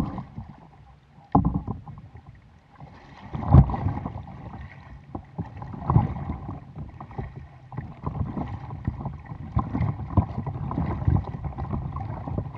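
Kayak paddle strokes splashing into the water beside an Oru Bay ST folding kayak, with water lapping and slapping against its hull. A few sharper splashes stand out in the first half, the loudest about three and a half seconds in, then the splashing turns more continuous.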